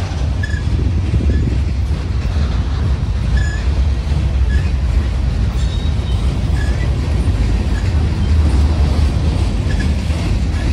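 Train rolling along the rails with a steady, loud low rumble, punctuated by brief high-pitched squeaks about once a second.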